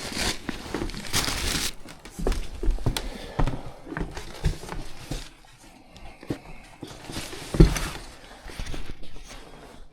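Footsteps and the knocking and rustle of tools and bags being carried, uneven throughout, with one heavy thump about three-quarters of the way in.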